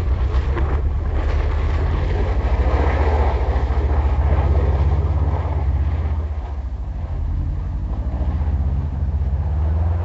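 Subaru Impreza WRX STI's turbocharged flat-four engine running hard with a deep, pulsing rumble as the car slides sideways on snow, with a hiss of tyres spinning in the snow, loudest about three seconds in. The sound eases a little after about six seconds.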